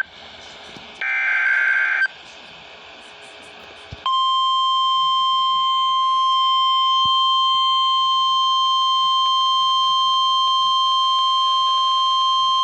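Emergency Alert System SAME digital header: a one-second burst of screeching two-tone data about a second in. At about four seconds the NOAA Weather Radio 1050 Hz warning alarm tone starts, a single steady high tone that holds to the end and signals that a severe thunderstorm warning is about to be broadcast.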